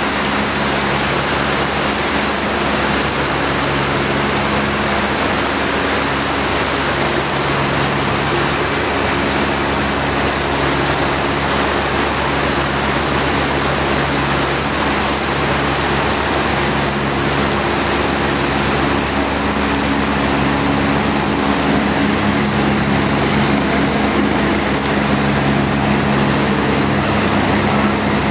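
AgustaWestland AW109 twin-turbine helicopter taxiing with its rotors turning: a steady engine and rotor hum with several held tones, under the hiss of heavy rain. It grows a little louder in the last third as the helicopter comes closer.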